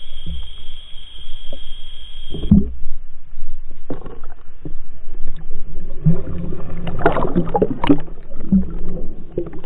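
Water sloshing around a small boat with irregular muffled knocks against it as a hooked pike is played alongside. A steady high whine runs for the first two and a half seconds.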